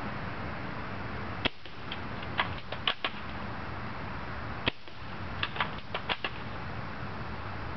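UTG MK96 spring-powered airsoft bolt-action sniper rifle fired twice, about three seconds apart. Each sharp shot is followed a second later by a quick run of three or four clicks as the bolt is worked to re-cock the spring. A steady hiss runs underneath.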